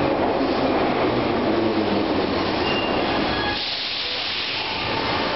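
Metro train noise at the platform: a dense rumble with a low steady hum. About three and a half seconds in it gives way to a sharp hiss of air for a second or so.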